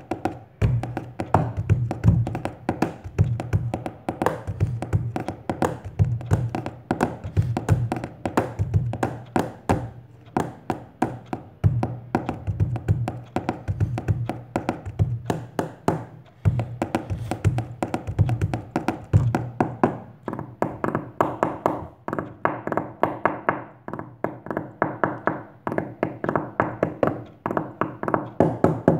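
Hands drumming a fast rhythm with the fingers on a thick hardbound book, a spiral notebook and the tabletop: dense rapid taps with deeper thuds mixed in.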